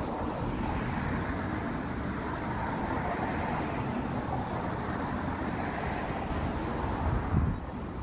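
Road traffic passing on the street: a steady rush of tyre and engine noise that fades out near the end, over low wind rumble on the microphone.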